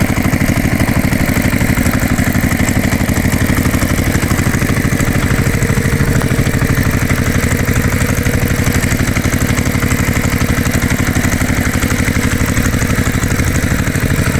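Engine idling steadily with a fast, even chugging.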